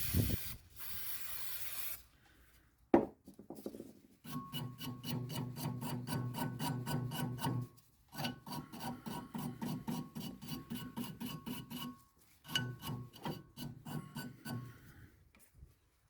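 A brief spray hiss, a single sharp click, then three runs of rapid, evenly spaced metallic clicks with a light ringing tone, as a ratchet spanner winds nuts off a ride-on mower deck.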